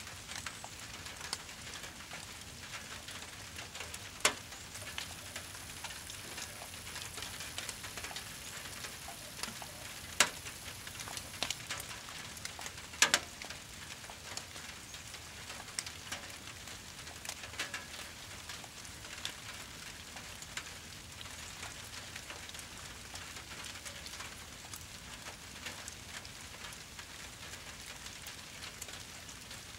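Brush pile fire burning in the rain: a steady hiss with scattered crackling and three loud, sharp pops about four, ten and thirteen seconds in.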